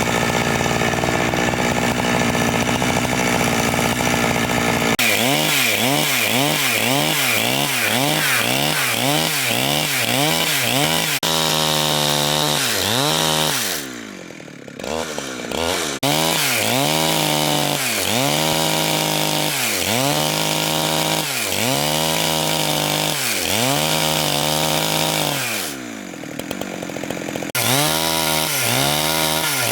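Chainsaw cutting through large wood, its engine pitch dipping and recovering over and over as the chain bites into the cut. The saw eases off briefly twice, about halfway through and again near the end.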